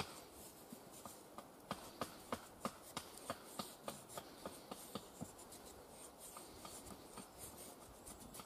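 Knife blade shaving curls down a split wooden stick to make a feather stick: short, sharp scraping strokes about three a second, growing softer after about five seconds.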